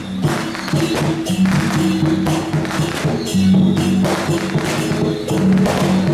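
Music with frequent sharp percussion strokes over held low notes.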